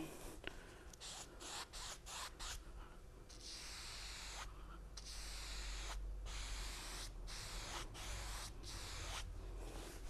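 A wide bristle brush swept lightly back and forth over wet oil paint on canvas: a faint, scratchy brushing in repeated strokes about once or twice a second, softening the paint of the water's reflection.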